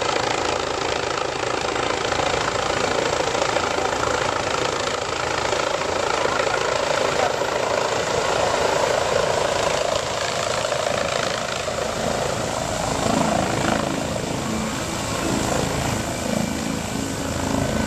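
Helicopter descending and coming in to land close by, its rotor and turbine making a steady loud whir. A deeper, throbbing rotor beat grows stronger over the last few seconds as it nears the ground.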